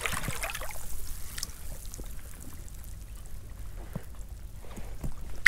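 Shallow rock-pool seawater trickling and lapping, with a few faint clicks.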